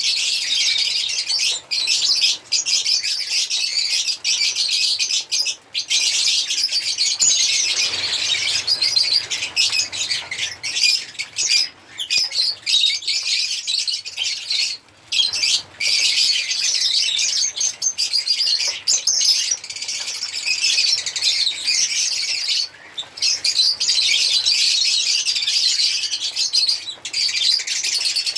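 African lovebirds chirping and chattering almost without a break, a dense stream of high-pitched calls and squawks with brief pauses.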